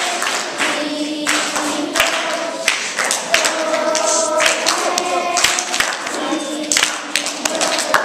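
A group of children singing together, with hand claps.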